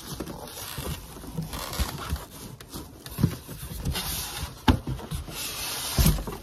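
Plastic wrapping crinkling and cardboard rubbing and scraping as a boxed foot massager is worked out of its shipping carton, with a few sharp knocks of the box being handled.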